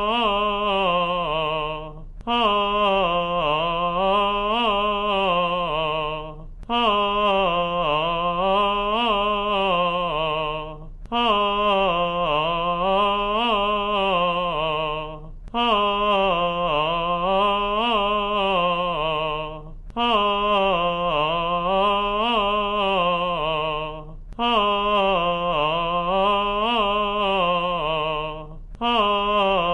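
A solo singer vocalising a vocal exercise on a sustained vowel, unaccompanied. Each phrase winds up and down through a short run of notes and lasts about four seconds, with a quick breath between phrases. There are about seven phrases in all.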